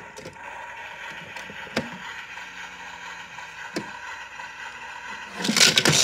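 Small battery motor of a toy washing machine whirring steadily as the drum turns a load of toy cars, with an occasional knock of a car inside. Near the end there is a loud plastic clatter as the door is opened and the cars spill out.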